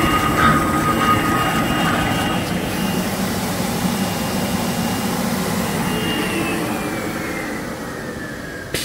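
Box-drawing facial tissue folding machine and its suction blower running down: the rhythmic clatter of the folding rolls fades in the first couple of seconds, leaving a steady rushing hum that slowly gets quieter, while a high whine falls in pitch over the last few seconds as the machine spins down. A sharp click comes near the end.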